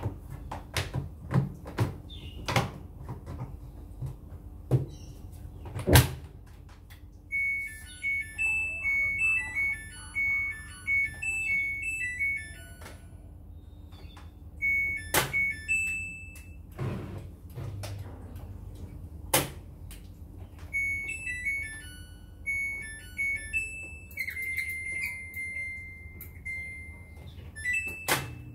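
Samsung front-loading washing machine's control panel beeping: a short tune of high electronic beeps, then more single button beeps and one longer held tone as its buttons are pressed. Before that, a string of knocks and clicks from the door and its rubber seal being handled, the loudest about six seconds in.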